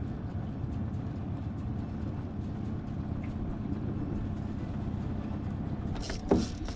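Small outboard motor running steadily at trolling speed, a low even drone with a hum. A short loud sound breaks in about six seconds in.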